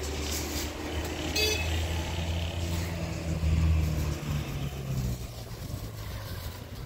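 Motor vehicle engine running, its low hum swelling and then fading away after about four seconds, with a brief high tone about a second and a half in.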